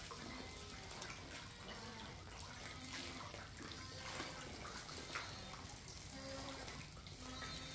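Catfish splashing and slurping at the water's surface as they feed on floating pellets: a steady run of irregular small splashes and drips.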